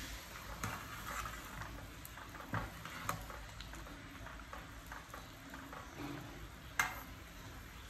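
Broth bubbling at a boil in a metal stockpot while a metal ladle stirs and skims it, with a few light clinks of the ladle against the pot, the sharpest near the end.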